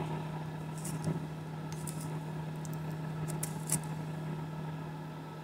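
A few faint clicks and taps as a small brass model steam engine frame with its crankshaft and flywheel is handled and turned on paper, over a steady low hum.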